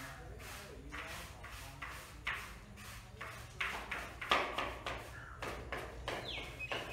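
Broom sweeping a rough cement floor: a run of short scratchy strokes, roughly two a second, loudest around the middle.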